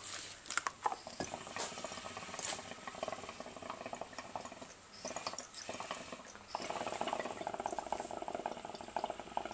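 Hookah water bubbling rapidly in the base as smoke is drawn through it, starting about two-thirds of the way in. Before that, scattered small clicks and rustles.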